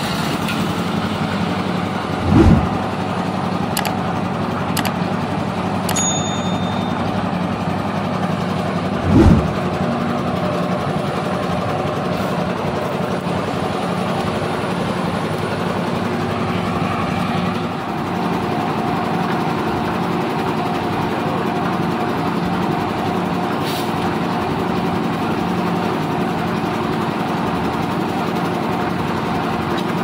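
Diesel engine of a lift concrete mixer running steadily as the drum turns, with two brief low thumps about two and nine seconds in.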